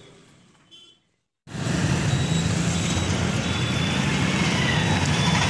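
Faint lane ambience, then after a moment of silence about a second and a half in, loud road traffic noise with a motor vehicle's engine running steadily.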